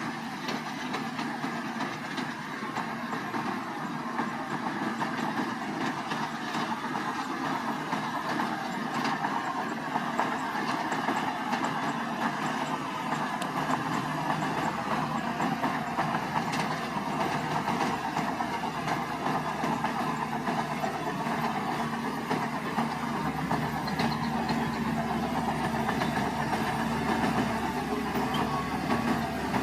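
Crawler bulldozer's diesel engine running steadily under its clattering steel tracks, growing louder over the first several seconds.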